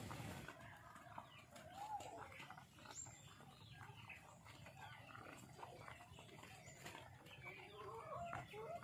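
A flock of game chickens clucking faintly while feeding on grain, with scattered soft ticks from their beaks pecking at the grain on feed sacks.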